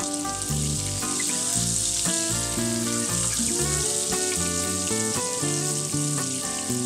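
Butter sizzling as it melts in a hot non-stick pan, under background music.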